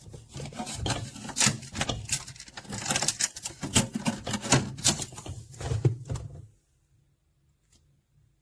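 Handling noises: irregular rubbing, knocks and clicks, which cut off abruptly about six and a half seconds in.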